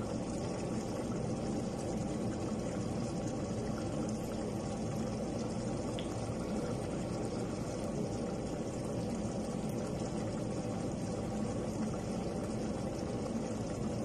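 Thick red sauce with chunks of meat boiling in a stainless steel pot on a gas hob: a steady bubbling.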